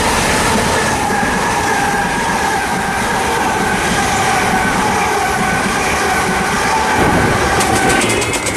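Electric multiple-unit trains, a Gatwick Express Class 387 and a Thameslink Class 700, running past close by with a heavy rumble and a steady high-pitched whine that sinks slightly in pitch. The whine stops about eight seconds in, and a quick run of clicks follows.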